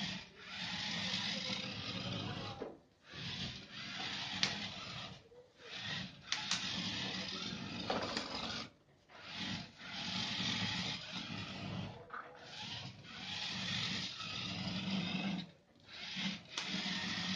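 Small geared DC drive motors of a homemade wheeled robot running in spurts of a few seconds with short stops between, as the wheels roll it across a wooden desk; a couple of sharp ticks come in between.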